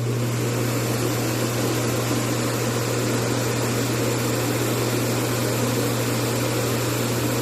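DreameBot L20 Ultra Complete base station's auto-empty suction motor running at a steady level, drawing dust out of the robot's bin into the station: an even rush of air over a low hum.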